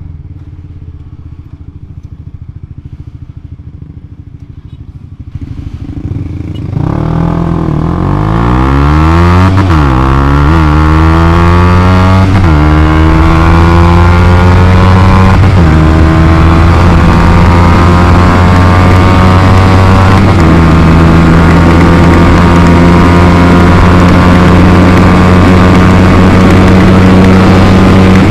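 Motorcycle engine with an RX8 aftermarket exhaust accelerating hard in a speed run. After a lower rumble, the revs climb about seven seconds in, with several upshifts where the pitch drops back and climbs again. It then holds a steady high-rev note at speed, with wind noise over it.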